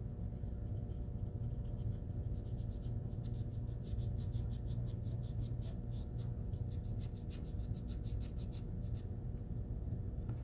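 A pointed embossing tool scratching and rubbing over metal HVAC duct tape in quick, short strokes, pressing the foil around raised sign letters. The tool is used dry, without oil, so its tip drags across the tape.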